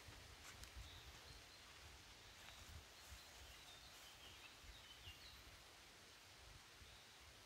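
Near silence: faint outdoor ambience with a low rumble and a few faint, short bird chirps scattered through it.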